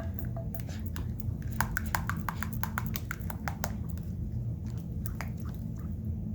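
White school glue being stirred with food colouring in a bowl: a quick run of small sticky, wet clicks, thickest in the middle, then thinning out.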